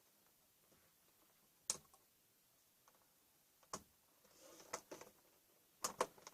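Scattered sharp clicks and taps of plastic and metal laptop parts being handled during disassembly, about five in all, the last two in quick succession near the end, with a brief soft rustle in the middle.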